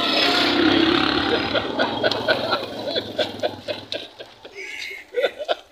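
A man and a woman laughing in short repeated bursts of laughter. Loud street noise with a low rumble fills the first second or so.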